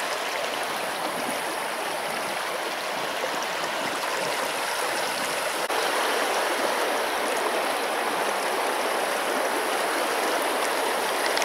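Taiga river water running steadily, a dense, even hiss of moving water that gets slightly louder about halfway through.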